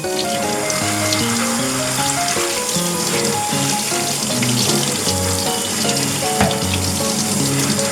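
Kitchen tap water running and splashing into a sink as range-hood parts are washed, under a light background melody of short notes.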